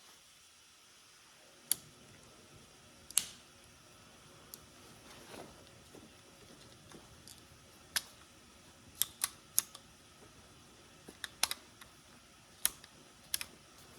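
Scattered sharp clicks and taps of small plastic and metal parts being handled as a corded electric grinder's switch and housing are fitted back together. There are about ten separate clicks, some in quick pairs, over a faint background.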